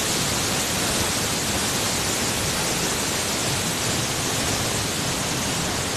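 Steady rushing of a waterfall: an even wash of falling-water noise with no breaks.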